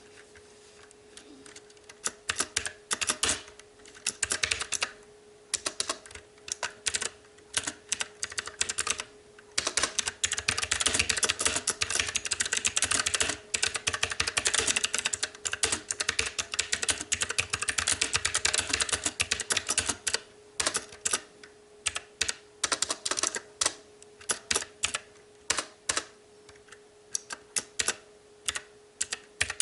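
Typing on a STOGA retro-typewriter mechanical keyboard with blue clicky switches. Scattered keystrokes at first, a fast dense run of clicks in the middle, then slower, separate keystrokes.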